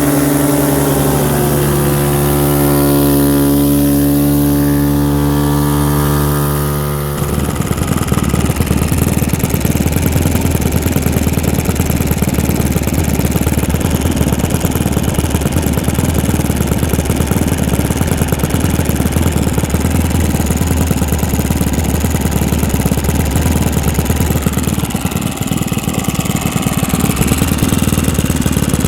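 Two model-aircraft four-stroke glow engines, an O.S. FS-62V and a Saito FA-62 turning 13x6 props, running on the ground. A steady even note holds for about seven seconds. Then it changes to a rougher, noisier running with a low steady hum for the rest.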